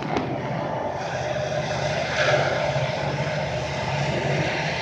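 Steady mechanical rumble of a passing vehicle.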